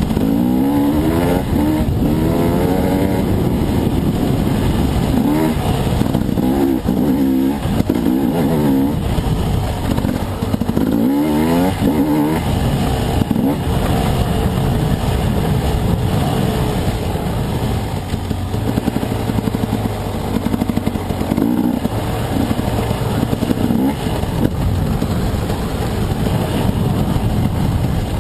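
Off-road dirt bike engine under riding load, revving up and down over and over as the throttle is worked, its pitch rising and falling every second or two.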